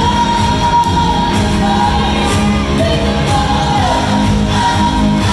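Live pop music: a woman singing with a band, choir and string orchestra, holding long notes over the full accompaniment.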